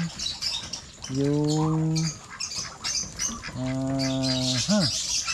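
Poultry-yard sounds: high chirps and squawks from the ducks and chickens throughout, with two long, even-pitched vocal hums from a man, each about a second, and a short up-and-down vocal sound near the end.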